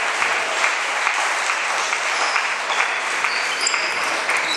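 Steady clapping of applause filling a sports hall. Near the end come a few short, high squeaks of sports shoes on the hall floor.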